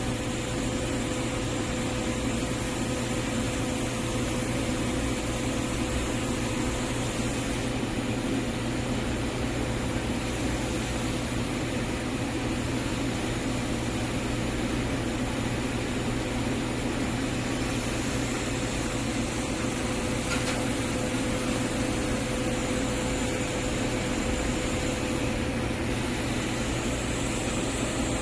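Steady hiss and hum of TIG (argon) welding on 6-inch schedule 40 carbon steel pipe in the 5G position, with filler wire fed by hand during the fill pass. A steady tone runs under the hiss with no breaks.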